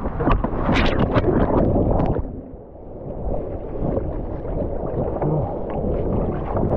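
Wind buffeting the microphone and water splashing while wing foiling, with a cluster of splashes in the first two seconds, a brief lull, then steady wind and water rush.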